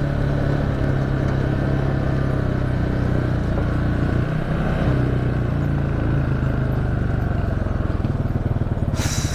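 ATV engine running while riding at a steady pace, with a brief dip about four seconds in. Near the end it eases off toward a slower, pulsing idle, and there is a short burst of hissing noise.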